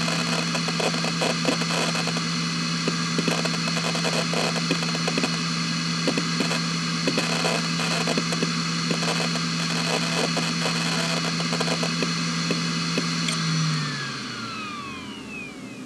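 Hitachi Ultrastar C10K147 2.5-inch 10,000 rpm SAS hard drive running, a steady spindle hum and high whine with rapid irregular seek clicks as the system shuts down. About thirteen seconds in the seeking stops and the drive powers down, its whine falling steadily in pitch as the platters spin down.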